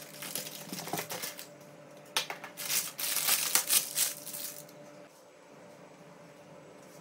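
Baking parchment paper crinkling and rustling as it is handled, with the loudest crackling between about two and four and a half seconds in.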